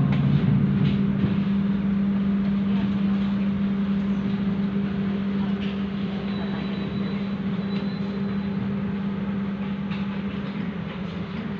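Steady low machine hum inside a stainless-steel executive-class passenger train carriage standing at the platform after arrival, with a few faint clicks over it.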